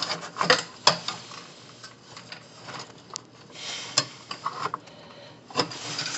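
Handling noise of a Ford Crown Victoria fuel pump assembly being worked up and rotated out of its tight spot: several sharp clicks and knocks of parts bumping, with a brief scrape about three and a half seconds in.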